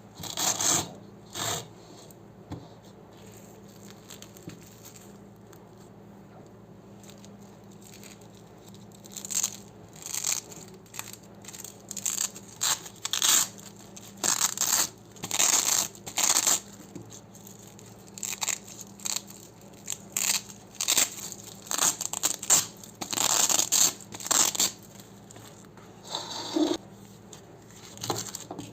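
Hook-and-loop (Velcro) strips being ripped apart in short, crunchy tearing bursts, repeated many times, after a lull of several seconds near the start.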